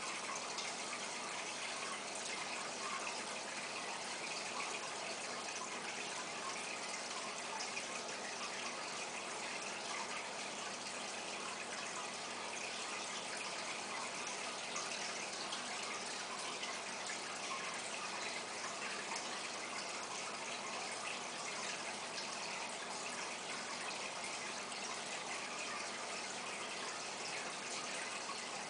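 Steady rush of water from a large aquarium's filtration, an even noise with no break or change.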